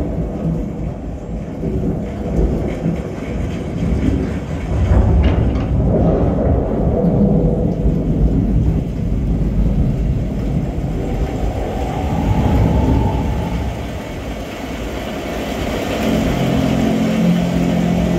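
Samsung soundbar playing a demo reel's thunderstorm soundtrack: deep rolling thunder rumble with rain, with a sharper burst about five seconds in. Music with held tones comes in near the end.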